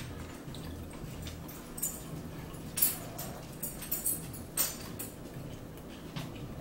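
Someone eating close to the microphone: chewing and mouth sounds broken by several short, sharp clicks and taps, the loudest about three seconds and four and a half seconds in, over a low steady hum.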